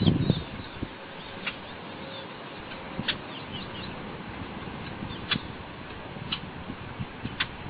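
Birds chirping: short, high calls every second or two over a steady background hiss.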